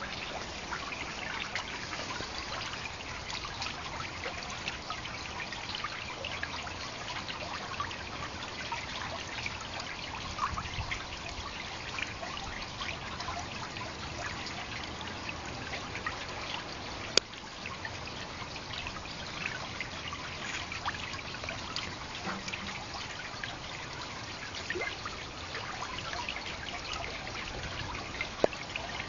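Garden fountain's water jets splashing and trickling steadily, with two short sharp clicks, one midway and one near the end.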